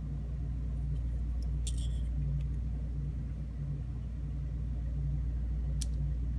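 Steady low hum, with two light clicks, one about two seconds in and one near the end, as small pins from a disassembled lock cylinder are handled.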